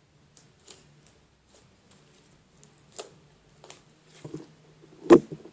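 Crunchy slime being stretched and squeezed by hand, with small air bubbles popping in it: faint irregular clicks and crackles, one clearer pop about three seconds in, and two louder pops near the end.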